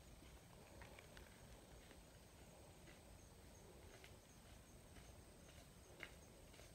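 Near silence: faint outdoor background with a few soft clicks scattered through.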